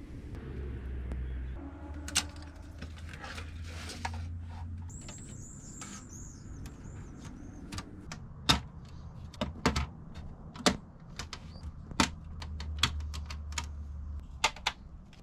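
A run of sharp, irregular clicks and taps, growing more frequent in the second half, from metal PC case parts being handled and fitted. A low hum sits under the first few seconds and returns near the end.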